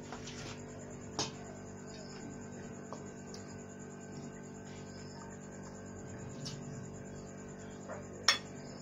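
A few light clinks of a serving spoon on a ceramic plate as stew is dished onto roti, with one sharper clink near the end, over a steady background hum.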